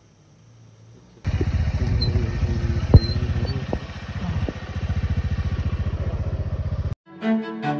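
Motorcycle engine running while riding along, a fast even pulsing that starts abruptly a little over a second in and eases briefly around four seconds. A single sharp knock about three seconds in is the loudest sound. It cuts off suddenly near the end and music begins.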